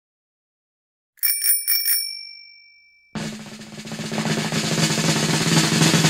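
Three quick rings of a small bell, then a drum roll that grows louder.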